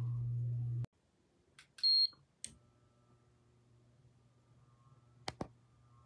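A steady low hum that cuts off abruptly just under a second in, then a few clicks and one short, loud, high electronic beep about two seconds in, and two sharp clicks near the end over a faint hum.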